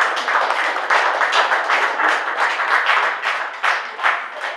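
A roomful of people clapping and applauding, with sharp claps coming about four times a second over a dense wash of applause.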